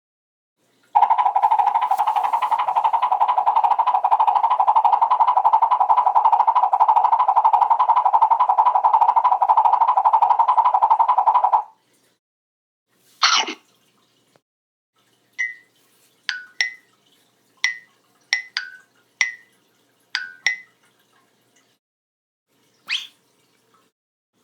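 A run of separate cartoon sound effects: a long, steady, rapidly pulsing tone lasting about ten seconds, then a single short swish, then a quick series of about nine short blips that step down in pitch, and one last short swish near the end.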